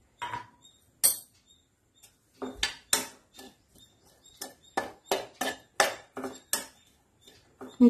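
A slotted stainless-steel spatula knocking and scraping against a stainless-steel pan as vegetable stuffing is stirred. One clink comes about a second in, then a quick, irregular run of about a dozen clinks and scrapes.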